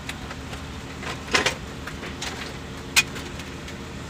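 Heavy diesel engine running steadily, heard from inside the cab, with a short rattle about a second and a half in and a sharp click near three seconds.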